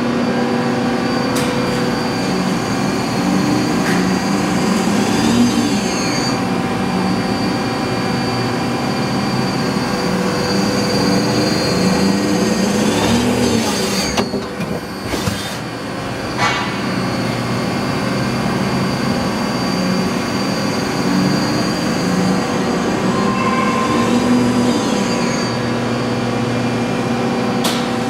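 Mazak QuickTurn 12C CNC lathe with its gantry loader running through a cycle: a steady machine hum with whines that rise and fall about every ten seconds, and a few sharp clicks, most of them near the middle.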